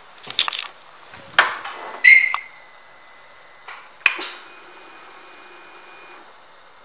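Switch clicks and a short, loud electronic beep as the ignition of a 2017 Harley-Davidson Street Glide Special is switched on. Another click about four seconds in, then a faint steady hum with a thin high whine for about two seconds, typical of the fuel pump priming before the engine is started.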